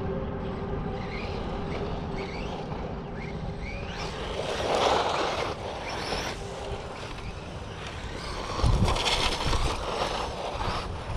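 LC Racing EMB-T 1/14-scale brushless RC truggy running: the electric motor gives short rising whines as it accelerates. Louder rushes of noise come about five seconds in and again about nine seconds in.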